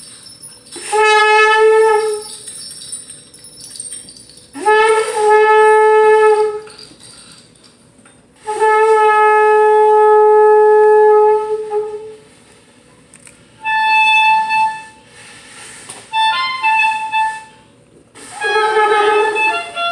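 A woodwind instrument playing three long held notes on one pitch, each scooping slightly up into the note and separated by pauses, then shorter, higher phrases near the end.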